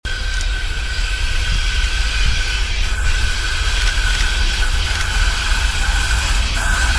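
VL60K electric locomotive hauling a freight train as it approaches: a steady hiss and low rumble with a high steady whine that grows stronger near the end.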